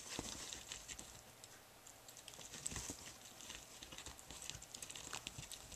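Puppy chewing and tearing at a cardboard box: faint, scattered crackles and small ticks.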